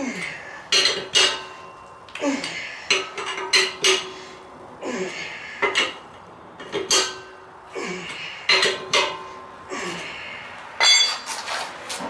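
Steel L-shaped lug wrench clinking against the spare wheel's lug nuts as each nut is given its final tightening, with short clusters of metallic clicks every second or two, some ringing briefly.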